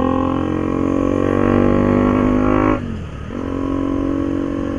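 KTM Duke 200's single-cylinder engine running loud and droning with its exhaust link pipe snapped at the weld, so the exhaust comes straight off the engine without the muffler. The note rises under throttle, drops sharply for a moment about three seconds in, then picks up again.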